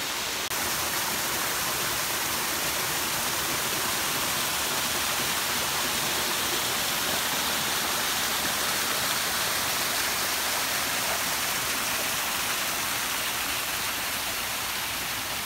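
A small stream splashing down a rocky cascade into a pool: a steady rush of falling water.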